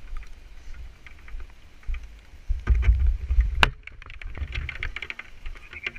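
Low rumbling buffeting and handling noise on a handheld camera's microphone in the rain, swelling loudest about three seconds in, with scattered small ticks and one sharp click about three and a half seconds in.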